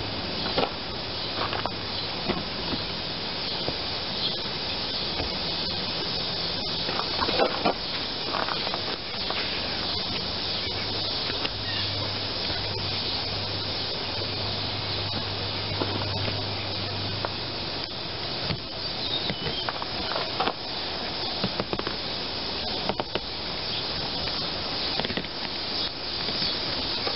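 Steady hiss throughout, with scattered short scratches and taps from a utility knife trimming and fitting seat foam. A low hum comes in for several seconds in the middle.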